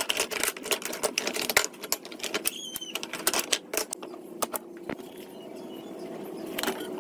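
Thin wooden strips clattering and knocking against each other and the wooden workbench as they are handled and sorted, a rapid run of sharp clicks for the first few seconds, then quieter handling while a board is measured and marked.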